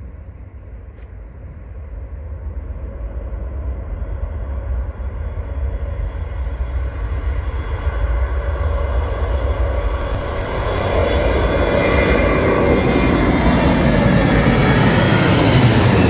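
Jet noise from the Boeing C-17A Globemaster III's four Pratt & Whitney F117 turbofan engines at takeoff power, growing steadily louder and brighter as the climbing aircraft approaches. Near the end it passes overhead, and the sound takes on a sweeping, shifting quality.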